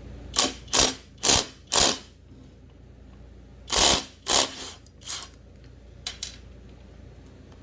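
A wrench working the McCulloch 850 chainsaw's flywheel nut loose: short mechanical ratcheting bursts, four in quick succession, then a few more spaced out.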